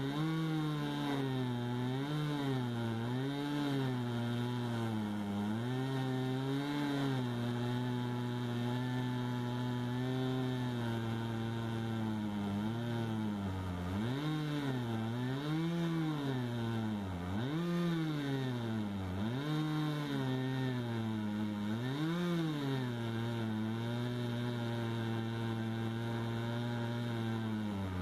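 Stihl MS250 two-stroke chainsaw ripping lengthwise through a cherry log in a chainsaw mill. Its engine speed repeatedly sags under load and picks back up every second or two. It is cutting with a dulled crosscut chain rather than a ripping chain.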